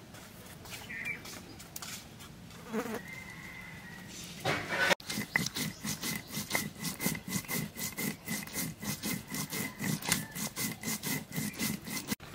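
Dried red chillies being crushed and ground with a hand-held stone on a flat stone slab (sil-batta): rhythmic stone-on-stone rubbing and crunching, about three strokes a second, starting about five seconds in.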